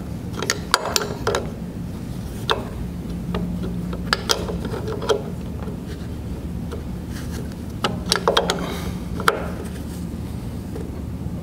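A wrench tightening a tube-fitting nut on stainless hydraulic tubing: scattered metal clicks and scrapes in short clusters, with pauses between turns, as the fitting is snugged down.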